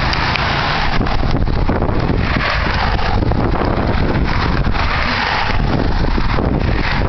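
Wind buffeting the microphone: a loud, steady rumbling roar with surging gusts.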